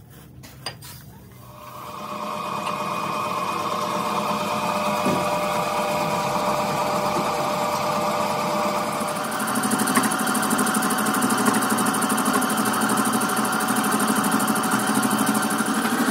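Engine lathe running while a cutting tool turns a steel truck axle spindle forging: a steady machine hum with several steady tones from the drive, growing louder with more hiss about nine seconds in.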